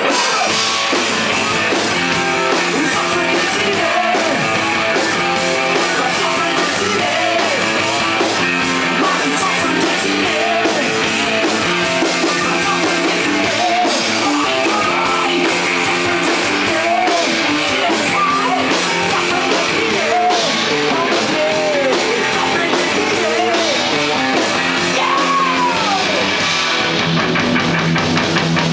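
Live rock band playing: distorted electric guitar, bass guitar and drum kit, with bent guitar notes. Near the end the cymbals drop out and a single low note is held.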